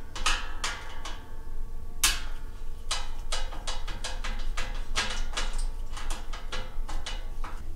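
Screwdriver clicking and scraping against the sheet-steel top of a welding table as screws are driven; each click sets the steel ringing briefly, irregularly, several times a second. A steady low hum lies underneath.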